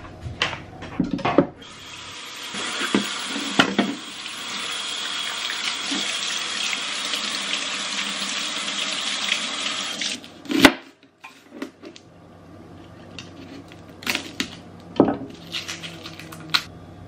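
Kitchen tap running steadily into a stainless steel sink for about eight seconds, then stopping. A sharp knock follows, then scattered light taps and clicks.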